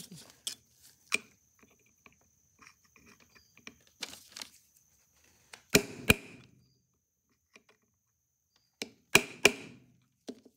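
Sharp metallic knocks and clicks of steel tools against a Victor II phonograph's spring barrel and its arbor pin. They come irregularly, the loudest in quick pairs about halfway through and again near the end, each with a short ring.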